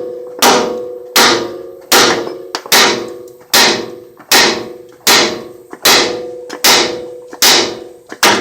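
Hammer blows on steel front-suspension parts, about eleven evenly spaced strikes a little more than one a second, each ringing briefly. The part is seized and not yet freeing, so it is being left to soak in penetrating oil.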